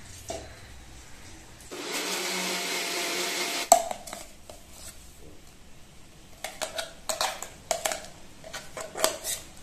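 Electric mixer grinder grinding soaked urad dal into paste. It runs steadily for about two seconds and then stops abruptly with a click. Near the end comes a run of short scrapes and taps as the paste is scraped out of the steel jar.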